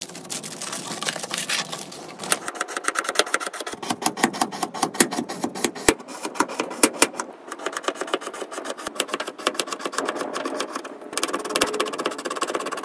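Aluminium foil crinkling as it is peeled open, then a metal palette knife cutting through a ridged strip of frozen, crumbly coloured material, a dense run of crisp crunching clicks.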